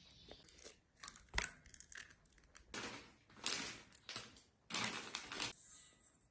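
Kitchen handling sounds while an egg-and-flour batter is being made: a few sharp clicks, then three short scraping, rustling swells in the second half.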